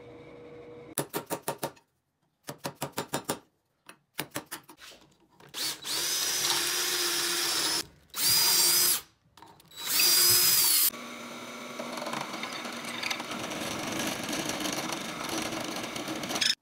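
Drill boring holes in wood, mostly a drill press. First come three quick runs of sharp clicking strokes. Then the bit cuts into the wood in three loud stretches with a high whine, and the drill runs steadily and more quietly until it stops abruptly at the end.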